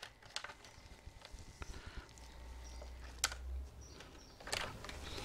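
Scattered faint plastic clicks and scrapes of keycaps being worked off a Razer BlackWidow Ultimate mechanical keyboard, with a sharper click a little past three seconds in.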